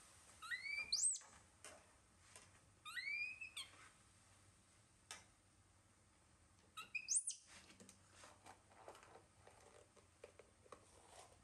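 Baby macaque giving high, whistle-like coo calls: three rising calls of about half a second each, a few seconds apart. Faint clicks and knocks come between them.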